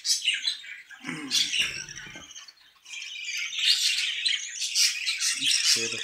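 Budgerigars chattering and chirping continuously, denser and louder in the second half.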